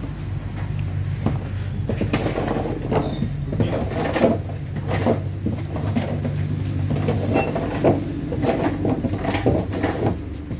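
Shop ambience: a steady low hum under a run of short knocks and clatters, like things being handled and set down.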